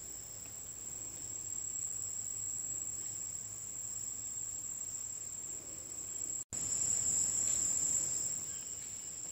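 Steady high-pitched insect chorus, breaking off for an instant about six and a half seconds in and then a little louder for a second or so.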